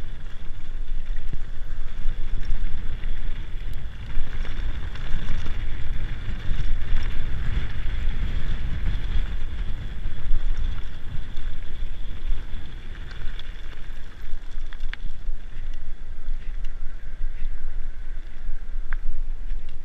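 Mountain bike riding downhill on a dirt and gravel trail: steady wind buffeting on the rider's camera microphone over the rumble and rattle of tyres and bike on the rough ground, with a few sharp clicks.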